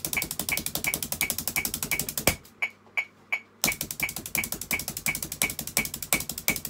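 Drumsticks playing fast, even strokes on a practice pad along with a metronome clicking at about 170 beats a minute. The strokes stop on a louder hit about two seconds in, pause for about a second while the metronome keeps clicking, then start again.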